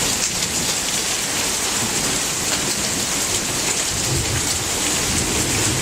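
Heavy thunderstorm rain pouring steadily, with a low rumble of thunder coming up near the end.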